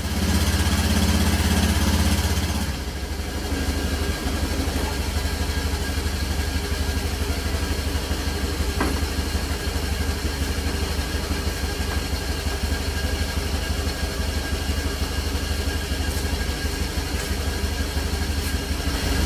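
Honda motor scooter's small single-cylinder engine running, faster and louder for the first few seconds, then settling into a steady idle.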